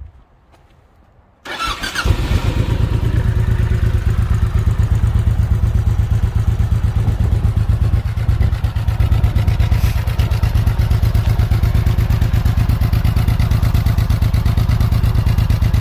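Honda VTX 1800's big V-twin engine started about a second and a half in, catching almost at once, then idling steadily with an even, tractor-like put-put from the exhaust.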